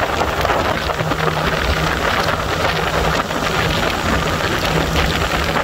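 Motorcycle engine running at a steady cruising speed, its hum holding one pitch, under a constant rush of wind over the microphone.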